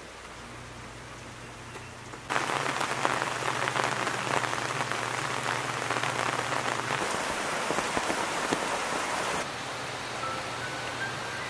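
Rain falling steadily, a dense patter of drops that starts suddenly about two seconds in and drops to a lighter level near the end.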